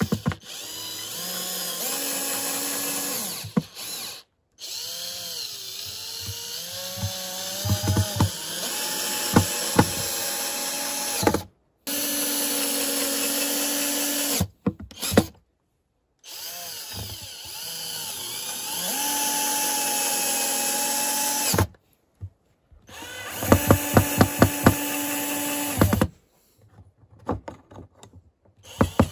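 Resanta cordless drill-driver driving screws through a steel hinge into a log, in several separate runs, its motor whine sagging and recovering in pitch as the screws bite. Near the end, quick rows of sharp clicks.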